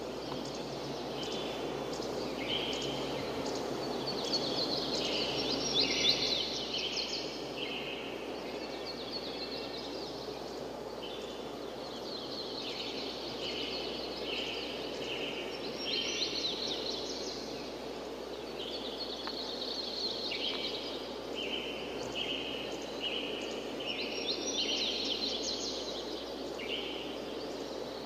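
Ambient soundscape of repeated bird-like chirps and trills over a steady wash of noise, swelling and easing in clusters.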